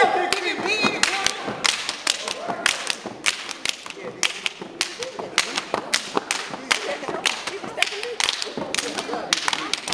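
A step team stepping: sharp foot stomps and hand claps in a quick, uneven rhythm.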